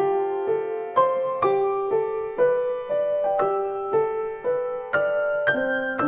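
Background piano music: a gentle, steady run of single notes, about two a second, each struck and left to fade.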